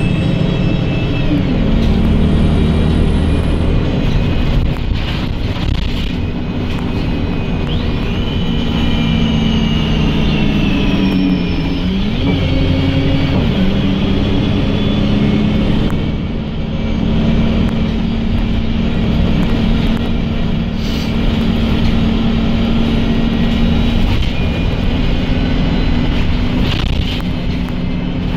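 A Wright StreetLite DF bus's diesel engine, heard from inside the saloon, running steadily under load, with a high whine that rises and falls as the bus pulls and eases off. About halfway through, the engine note dips and then climbs back up.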